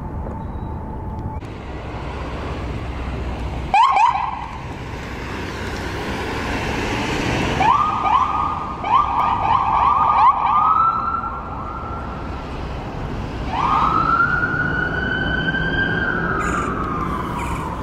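Electronic emergency siren on a fire department response vehicle: a short double chirp, then a fast yelp for a few seconds, then a wail that rises, holds and slowly falls near the end, over low traffic and engine noise.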